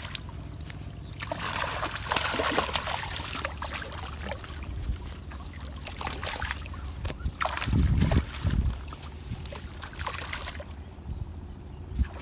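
Water splashing and sloshing in irregular bursts, with a few dull low thumps about two-thirds of the way through.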